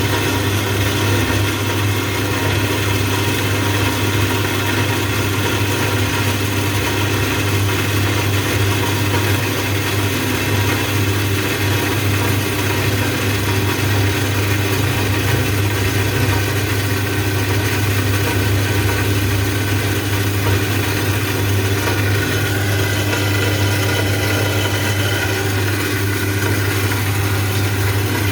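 Machine tool running steadily on its own, a constant hum with a higher steady whine, as it works through an automatic cut.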